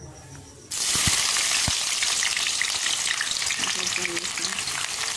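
Sliced onions hitting hot ghee in a metal kadai: a loud frying sizzle starts suddenly less than a second in and keeps up steadily as the onions begin to fry.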